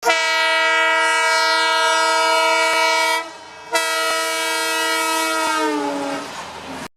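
Indian Railways locomotive horn sounding two long blasts, about three seconds each with a short break between; near the end the second blast sags in pitch before cutting off.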